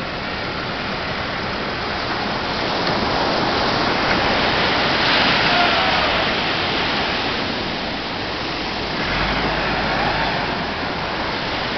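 Sea surf rushing steadily on the shore, swelling twice, with a short low rumble about nine seconds in.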